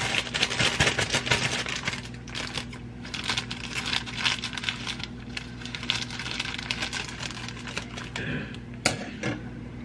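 A plastic pouch of brownie mix crinkling as it is handled and snipped open with scissors, with rapid clicking and rustling that thins out after the first few seconds. A single sharp click comes near the end.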